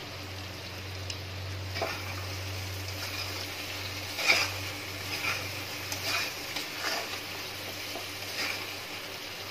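Chicken pieces sizzling in thick masala in an iron kadai, with a spatula stirring and scraping against the pan about seven times.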